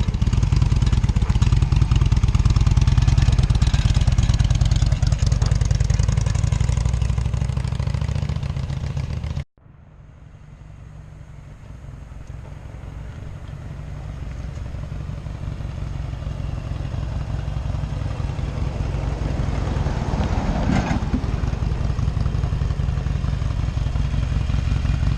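Harley-Davidson Sportster's V-twin engine running as the motorcycle rides off, slowly fading. After an abrupt cut about nine seconds in, the motorcycle is heard again faint and growing steadily louder as it comes back.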